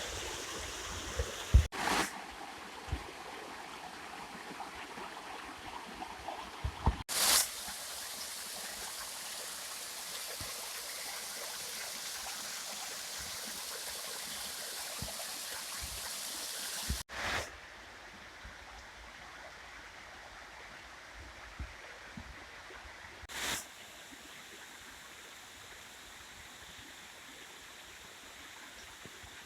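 Steady rushing and splashing of a waterfall and its stream. It is broken by several abrupt cuts with short bursts of noise, and is somewhat quieter after about two-thirds of the way through.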